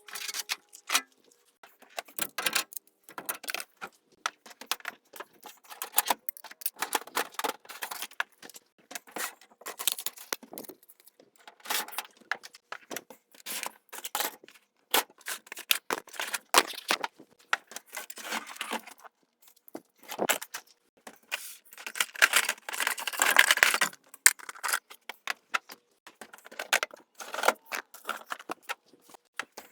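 Irregular metallic clinking and clattering, like hardware and metal parts being handled and knocked together, with a busier, louder stretch near the end.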